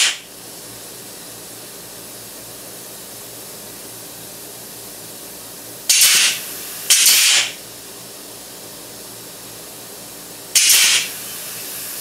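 Three short, loud blasts of compressed-air hiss, about 6, 7 and 10.5 seconds in, each lasting about half a second, from the air-driven HDPE injector. A steady low hiss continues underneath.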